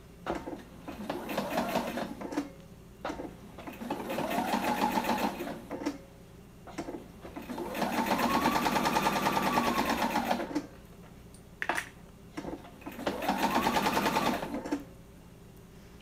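Electric sewing machine stitching in four short stop-and-go runs, each with a rapid, even needle clatter and a motor whine that rises as it speeds up and falls as it slows to a stop.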